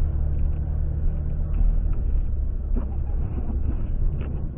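Steady low rumble of a car's engine and road noise, heard from a dashcam inside the moving car, with a few faint knocks.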